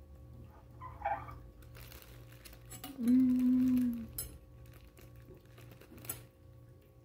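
A woman's closed-mouth "mmm" of enjoyment while chewing chocolate panettone, one steady hum held for about a second midway. Around it come a few soft crackles and taps from the plastic wrapper and the table.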